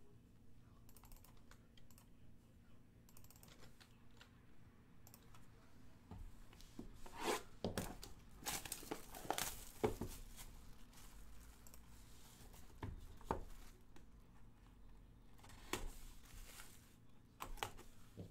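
Light computer-keyboard typing in the first few seconds, then a sealed trading-card box being unwrapped and handled: plastic shrink-wrap tearing and crinkling, loudest about halfway through, and a few sharp cardboard handling sounds near the end.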